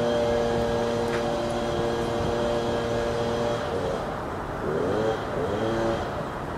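Outdoor road-traffic background with a motor's steady multi-pitched hum that stops about halfway through. A few short sounds sliding up and down in pitch follow near the end.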